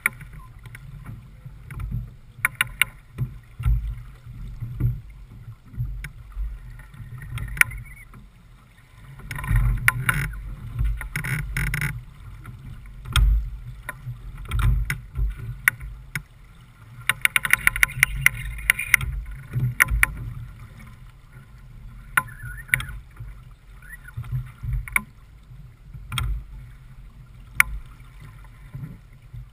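Noise aboard a J/24 keelboat under sail: a steady low rumble of wind and water with frequent short knocks and clicks. Louder hissing washes come about ten seconds in and again around eighteen seconds.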